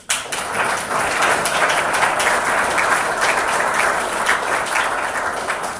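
Audience applause, many hands clapping, breaking out all at once and running on steadily.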